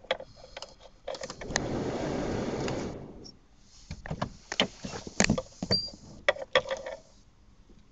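An Opel Vectra A's ignition key is turned on: sharp clicks, then a steady electric whir lasting about two seconds that fades away, the fuel pump priming before a cold start. Scattered clicks and knocks follow.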